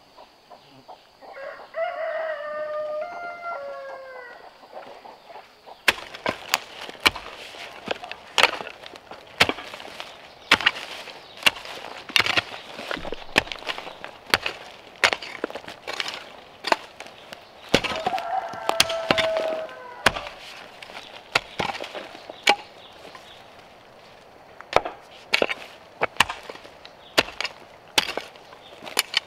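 A rooster crows twice, about a second in and again past the middle. From about six seconds a hoe blade chops repeatedly into hillside soil, with sharp strikes coming irregularly about once a second.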